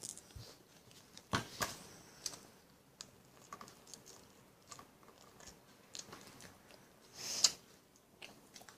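Faint chewing and wet mouth noises of marshmallows being chewed with a full mouth: scattered small clicks and smacks, with a louder breathy rustle about seven seconds in.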